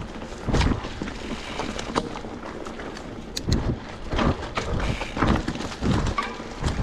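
Mountain bike riding over a dirt forest trail: tyres rolling on dirt and leaf litter, with irregular thumps and rattles as the bike goes over bumps, and wind on the microphone.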